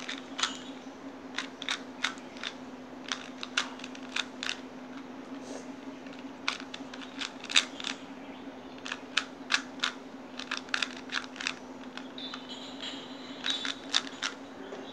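A 2x2 Rubik's Cube being twisted by hand: irregular sharp plastic clicks, often in quick runs of two or three, as its layers are turned. A steady low hum runs underneath.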